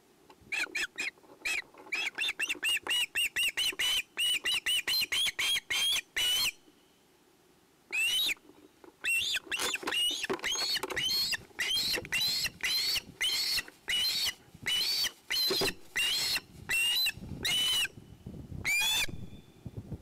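Juvenile osprey squealing food-begging calls, loud and shrill. First comes a fast string of short calls, about four a second. After a pause of a second or so, slower and longer calls follow, about two a second.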